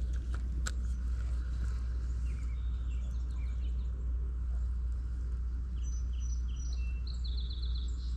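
Songbirds chirping in short repeated notes, thickening into a quick run of notes near the end, over a steady low rumble. Two sharp clicks sound in the first second.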